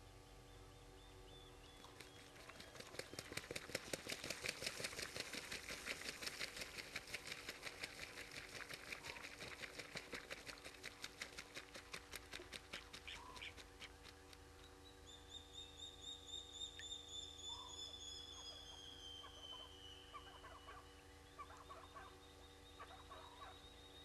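Night-time animal calls: a fast, even rattling trill that swells a couple of seconds in and fades away, followed past the middle by a few high whistled notes that fall in pitch.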